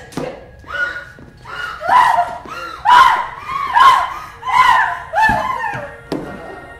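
A woman screaming over and over in a string of short, loud, high shrieks, each falling in pitch, then a thump near the end.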